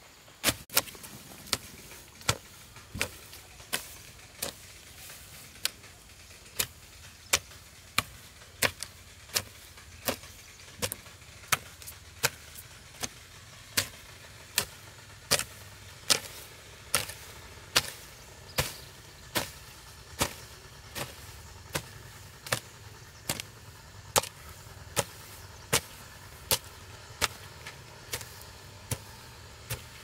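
Hand hoe chopping into soil between corn rows: a steady rhythm of sharp strikes, about one every three quarters of a second.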